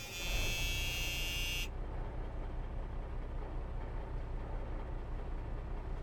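Concrete mixer truck sound effect: a low engine rumble running steadily, with a high buzzing tone over it that cuts off suddenly about a second and a half in.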